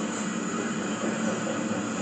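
A freight train's cars rolling past on the rails: a steady rumble and hiss of wheels on track, with no breaks or single knocks.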